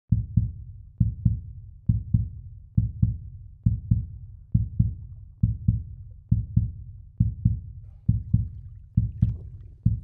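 Heartbeat sound effect: steady pairs of deep, low thumps, a double beat repeating a little faster than once a second.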